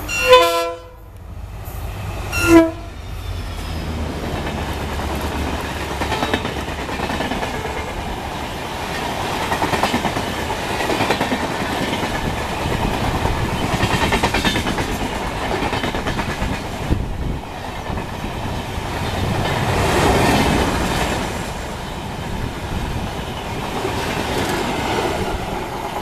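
WDP-4D diesel locomotive sounding its horn in two short blasts, the second about two and a half seconds after the first. Then the locomotive and its LHB coaches rush past at speed without stopping, with a steady noise of wheels on rail.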